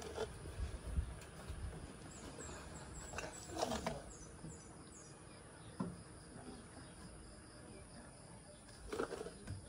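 Footsteps on wooden stairs, a few low thuds in the first two seconds, then a faint outdoor background with a few short high chirps a few seconds in.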